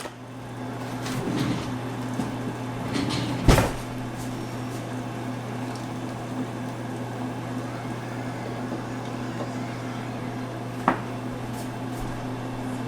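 A steady low electrical hum from an appliance, with a few knocks and clicks like cupboard doors being opened and shut, the loudest about three and a half seconds in and another near the end.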